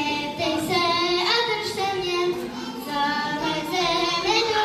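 A child singing a melody solo, holding notes and moving from pitch to pitch.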